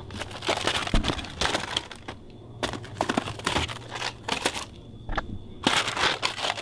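Cardboard boxes of frozen food rustling and knocking as they are handled at a supermarket freezer shelf, in several bursts of crackly noise over a faint steady hum.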